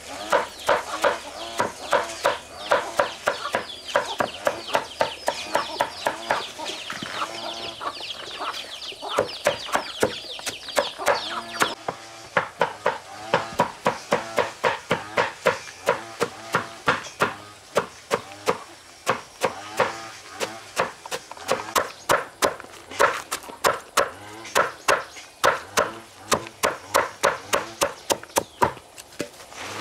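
Chickens clucking over a fast, steady run of sharp strikes of a hand tool, about three a second. The calls fade out about twelve seconds in while the striking goes on.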